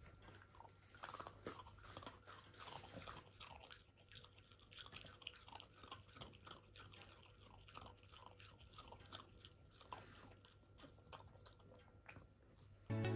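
French bulldog chewing something chewy: a faint run of soft, wet clicks a couple of times a second. Background music cuts back in at the very end.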